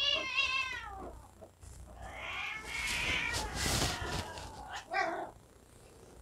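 Cats yowling in a fight: a long wavering yowl, then a rougher, noisier stretch, and a short call about five seconds in.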